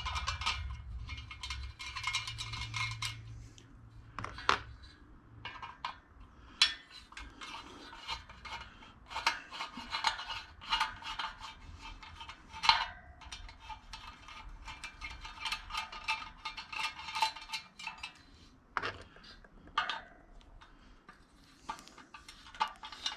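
A flathead screwdriver scraping and clicking on the spoke nipples of a Suzuki DR-Z400SM motorcycle wheel as the spokes are unscrewed, with the loose steel spokes clinking against each other and the rim. Irregular short clicks and metal scrapes come one after another.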